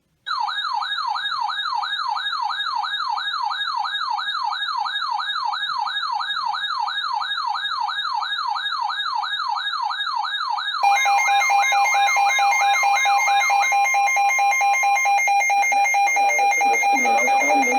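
Weather alert radio's warbling siren alarm: a loud wailing tone that starts suddenly and rises and falls about three times a second. About two-thirds of the way through, a steady alert tone comes in over it, and the wail then stops, leaving the steady tone. Together they signal an incoming weather warning.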